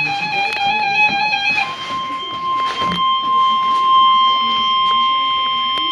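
NOAA Weather Radio warning alarm tone: a single steady high tone, the 1050 Hz alert that signals a warning is about to be read, starting about a second and a half in and holding unbroken. Before it, a wavering sustained musical note.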